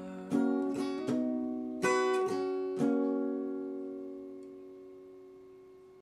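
Acoustic guitar playing the closing phrase of a country song: a handful of picked notes and strummed chords, then a final chord left to ring and slowly fade out.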